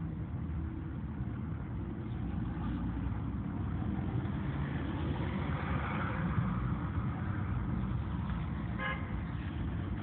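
Steady rumble of road traffic, swelling around the middle as a vehicle passes, with one short car horn toot near the end.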